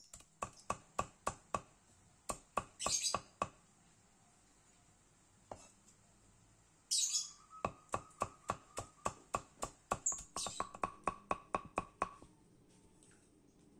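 Large knife chopping rapidly on a wooden chopping board, mincing raw spice-paste ingredients (chilies, shallots, garlic and roots) fine. The strikes come about four a second in two runs, with a pause of a few seconds in between.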